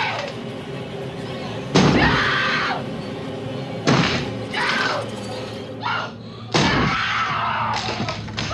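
An axe smashing into a wooden door: three heavy splintering blows about two to three seconds apart, with a woman screaming in terror between them.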